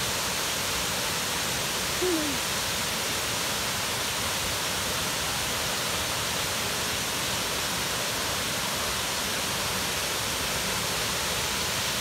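Waterfall plunging into its pool: a steady, unbroken rush of falling water.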